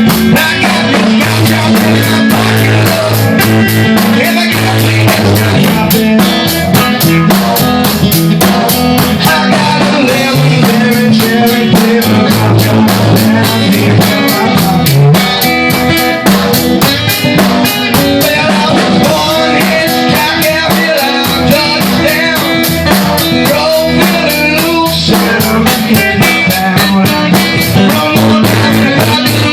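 Blues-rock band playing an instrumental passage: guitar over a steady drum-kit beat.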